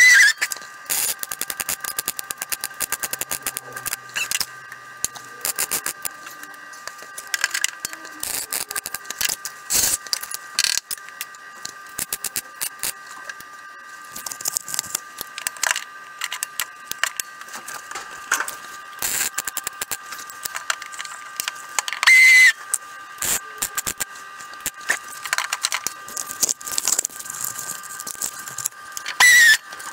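MIG welder plug welding through holes in a car wing's lip, played back sped up: a dense, irregular crackle of short clicks over a steady high tone, with three louder short bursts.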